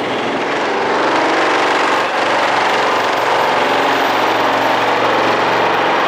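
Vibratory pile hammer running on a steel pile: a loud, steady mechanical buzz that builds over the first second and then holds level, with no separate hammer blows.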